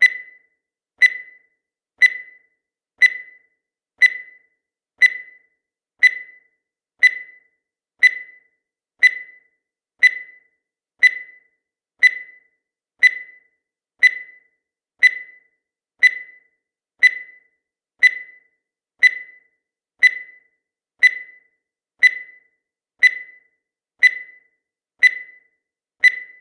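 Countdown timer sound effect: a short, high electronic beep once every second, each one sharp at the start and fading quickly.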